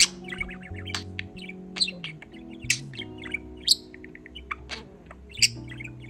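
Male budgerigar chirping and chattering: a busy run of quick high chirps with several louder, sharp chirps spread through.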